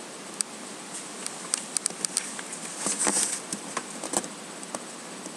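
Handling noise from a handheld camera: scattered faint clicks and taps over a steady hiss, with a short rustling stretch about three seconds in.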